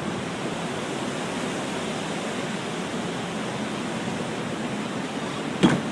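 Steady rushing roar of wind from an EF4 tornado passing very close. A brief sharp sound comes near the end.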